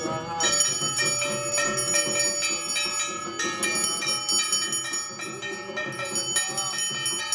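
Hindu puja handbell rung rapidly and continuously, a dense ringing with many overtones.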